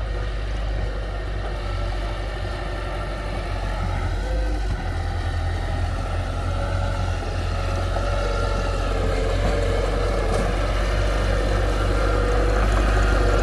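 Heavy diesel engine running steadily, growing gradually louder.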